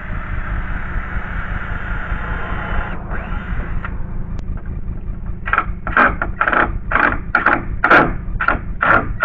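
Cordless screw gun running for about three seconds while backing deck screws out of the boards, then again briefly. Near the end comes a series of short scraping strokes, about two a second.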